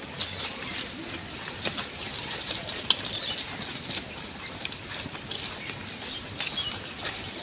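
Flock of sheep on the move: a steady patter of many hooves on the ground, with scattered sharp clicks.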